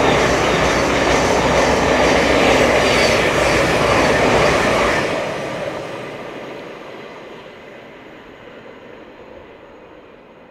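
Thameslink Class 700 electric multiple unit passing close at speed. There is a loud, steady rush of wheel and air noise with repeated clicks from the wheels, which fades away from about five seconds in.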